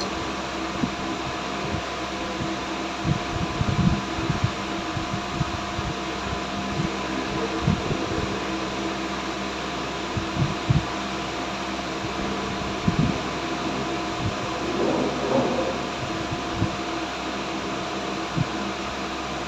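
A steady fan hum, with scattered short knocks and clunks of parts and tools being handled.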